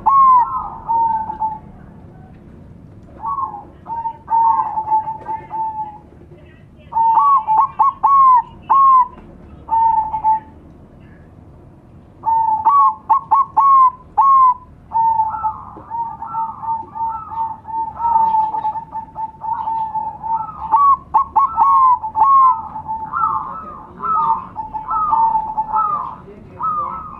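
Zebra doves (perkutut) singing: repeated phrases of quick rising, hooked notes that end in a held tone, in bouts with short pauses at first and almost unbroken from about halfway, several birds overlapping.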